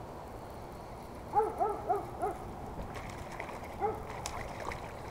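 A quick run of four short yelps, each rising and falling in pitch, about a second and a half in, and one more near four seconds in, over a faint steady background.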